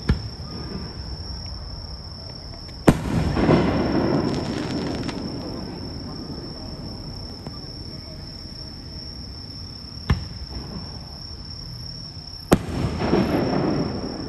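Aerial fireworks bursting: four sharp bangs, the second and fourth the loudest, each of those two followed by about two seconds of dense crackling. A steady high-pitched trill runs underneath.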